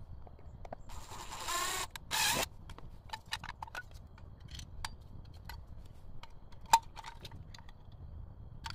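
Cordless drill-driver whirring briefly about a second in, its pitch wavering, followed by a second short burst. Then a string of light clicks and knocks from handling the plastic outlet box cover, with one sharper click near the end.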